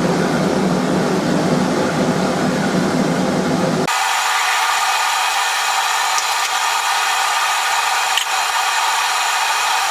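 Forge blower turned up, blowing air into the coal fire with a steady rushing whir. About four seconds in the sound changes abruptly, its low part dropping away.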